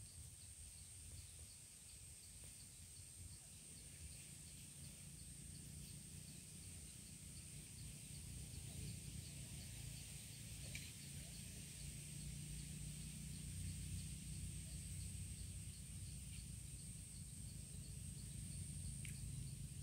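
Outdoor insect ambience: a steady, high-pitched insect drone with a faint, regular chirping beneath it, over a low rumble.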